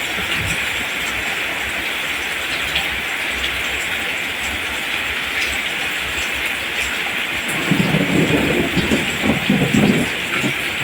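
Steady heavy rain falling, an even hiss. About three-quarters of the way through, a louder, uneven low rumble rises for a couple of seconds and fades.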